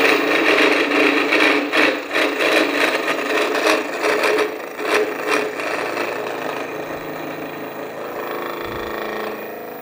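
Shop-built milling head's 12 mm carbide end mill cutting mild steel at a 1 mm depth of cut: a harsh, rasping cutting noise with a rapid irregular crackle. It eases off somewhat after about five seconds.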